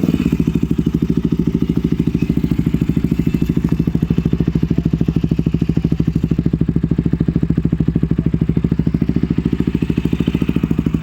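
Motorcycle idling through a freshly fitted Akrapovic aftermarket exhaust, with the stock catalytic-converter pipe removed, giving a steady, evenly pulsing exhaust note just after a start.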